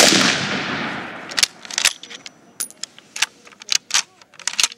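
A single rifle shot from a Mosin-Nagant M44 carbine firing 7.62x54R. It is very loud and sudden, with a ringing, echoing tail that fades over about a second and a half. After it come a string of sharp metallic clicks and clacks as the bolt is worked.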